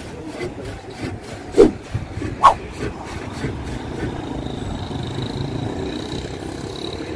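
Street traffic with a motorcycle riding past, its sound building over the last few seconds. About a second and a half in come two short, loud sounds, a second apart.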